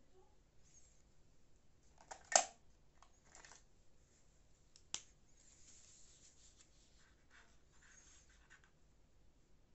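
Small off-camera handling noises during paper crafting: a short loud rustle about two seconds in, a sharp click about five seconds in, then faint scratchy rustling.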